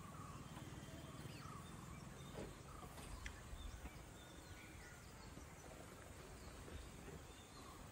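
Faint outdoor forest ambience: a low steady rumble with a few scattered, faint bird chirps and occasional soft clicks.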